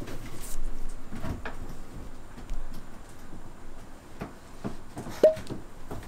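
Scattered knocks and clatter of objects being handled, with one short, sharp ringing clink about five seconds in.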